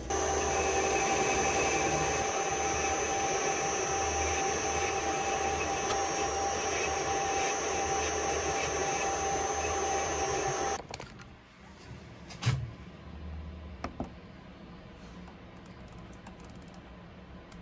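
Small metal lathe running with its four-jaw chuck spinning: a steady motor-and-gear whine with several high tones, cutting off about eleven seconds in. A sharp click follows a couple of seconds later, then a smaller one.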